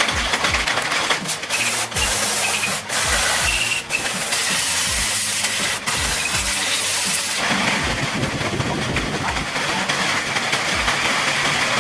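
Background music with a steady beat over a dense hissing noise that changes about seven and a half seconds in.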